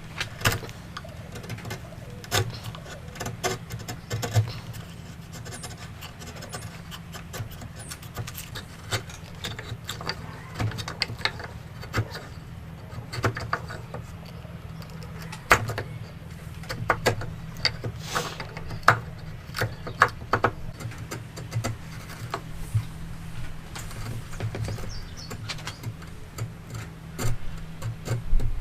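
Irregular sharp taps and knocks of hand woodworking tools on wood, some spaced well apart and some in quick clusters, over a steady low hum.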